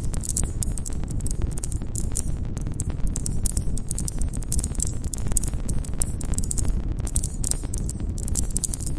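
Wood campfire crackling: many quick, irregular snaps and pops over a steady low rumble of the burning fire.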